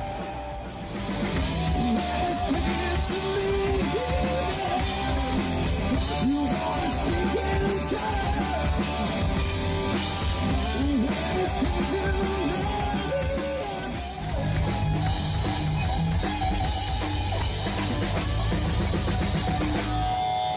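Rock band playing live: drum kit and electric guitars, with a melody line that bends up and down in pitch over the steady drums. The loudness dips briefly about fourteen seconds in, then the full band picks up again.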